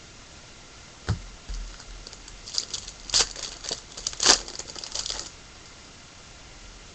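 Foil wrapper of a baseball card pack being torn open and crinkled. A dull knock comes about a second in, then about four seconds of irregular crackles and snaps, the loudest a little past the middle.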